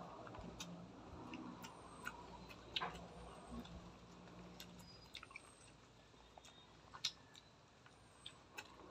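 Faint chewing of crispy fried food, with scattered small clicks and mouth noises as it is eaten by hand.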